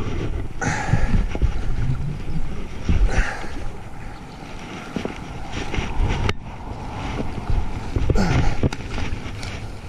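Wind buffeting a chest-mounted camera microphone as a low, uneven rumble, with rustling and knocks from the angler's movement and handling of the rod.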